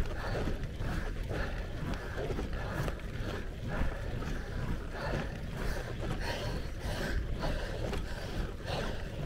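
Wind buffeting a handlebar-mounted camera's microphone while a road bike rolls along asphalt: a steady low rumble with irregular gusts.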